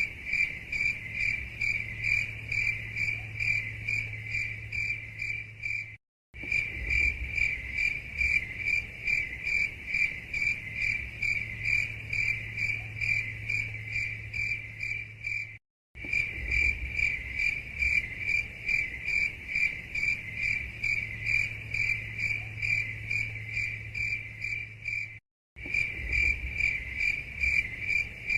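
Crickets chirping in an even, rapid pulse of about three chirps a second, over a faint low hum. The recording is a loop that cuts out to silence for a split second three times, about every ten seconds.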